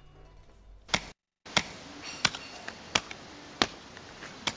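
A hoe striking hard, dry earth while digging, in six sharp, evenly paced blows about two-thirds of a second apart.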